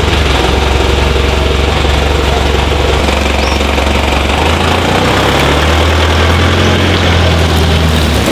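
A 4WD tow vehicle's engine idling, then rising slightly in pitch about five seconds in as it pulls away towing a camper trailer.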